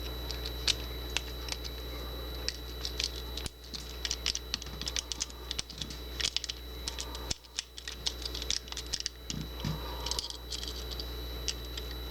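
Paperclip rake scraping and clicking against the pins inside a Bunker Hill padlock's keyway as it is raked under a tension wrench: a run of irregular light metallic clicks and scratches.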